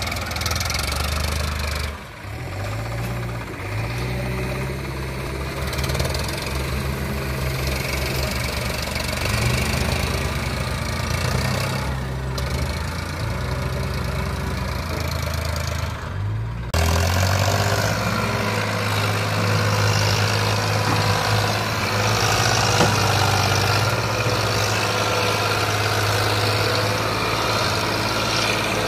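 Farmtrac 60 tractor's diesel engine running hard while pulling a fully loaded soil trolley uphill out of a pit. The engine note shifts a few times, and about two-thirds of the way through it turns suddenly louder and steadier.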